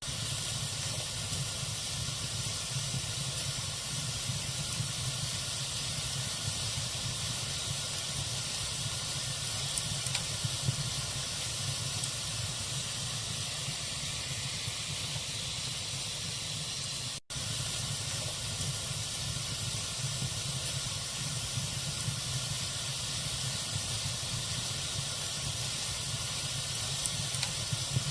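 Wood fire burning in a fireplace: a steady hiss with a few faint crackles. The sound cuts out for an instant about two-thirds of the way through.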